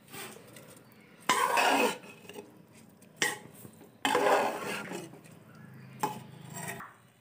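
Steel spatula scraping and stirring rice with mutton kurma against the inside of a pressure cooker pot, in about four separate strokes, as the rice is fried with the meat.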